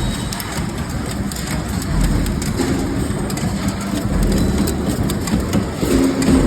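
Cold forging machinery running: a steady mechanical hum and rumble with many light clicks and knocks.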